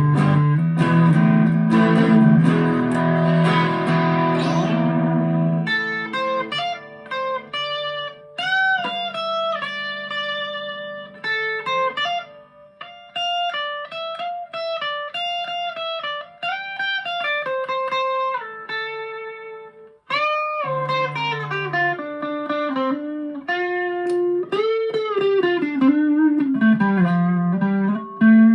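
Harley Benton TE-52 Telecaster-style electric guitar played through a Vox AV15 amplifier: ringing strummed chords for the first few seconds, then single-note lead lines with string bends and vibrato. About twenty seconds in, the playing stops for a moment and then a chord is struck.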